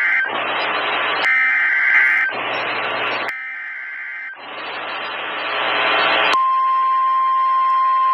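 NOAA Weather Radio emergency alert signal: screeching digital SAME header data tones alternating with bursts of static hiss. About six seconds in, the steady 1050 Hz warning alarm tone starts and holds.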